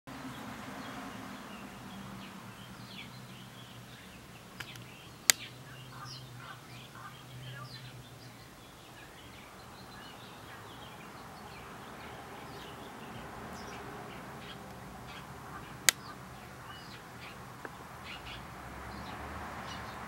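Small songbirds chirping repeatedly in short calls. Two sharp clicks, about five seconds in and again near sixteen seconds, are the loudest sounds.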